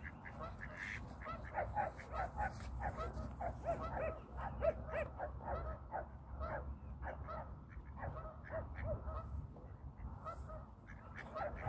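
A flock of ducks and other waterfowl calling, with many short calls overlapping in a steady chatter, over a low rumble.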